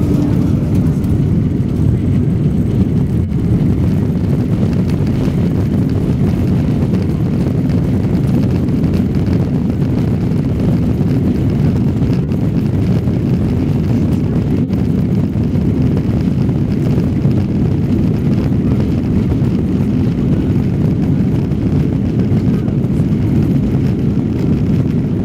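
Airbus A330-200 take-off roll heard from inside the cabin: the jet engines at take-off thrust and the runway rumble make a loud, steady, deep noise as the airliner accelerates.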